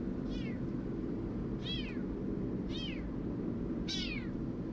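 A young kitten meowing four times, thin high calls that fall in pitch, over the steady low rumble of a moving vehicle.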